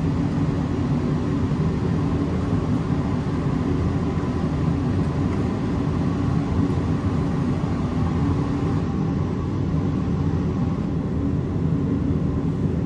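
A steady low mechanical drone with a faint hum, unchanging throughout.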